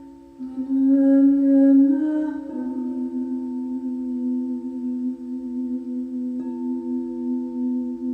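Singing bowls ringing together in steady, overlapping tones. The sound swells about half a second in, the notes change around two and a half seconds in, and another light strike comes about six seconds in.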